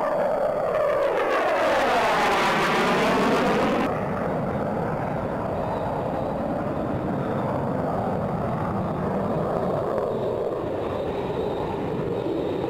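Jet noise from the F-4 Phantom II's two J79 turbojets as it flies past and climbs away: a loud rush whose pitch sweeps and wavers over the first few seconds. About four seconds in the sound suddenly turns duller and steadier.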